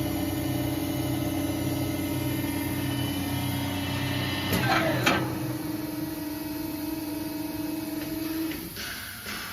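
CNC U-type drilling machine for rebar couplers running with a steady motor hum. About halfway there is a sharp sound with a quickly falling pitch, and near the end the hum cuts off, followed by a few knocks.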